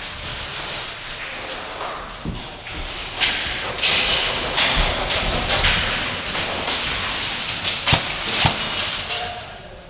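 Irregular thumps and sharp snaps, with short hissy bursts between them.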